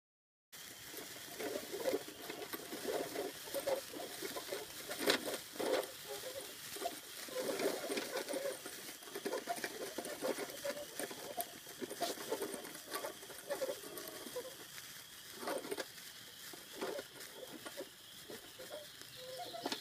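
Sparklers burning, a steady fizzing crackle with irregular sharp pops.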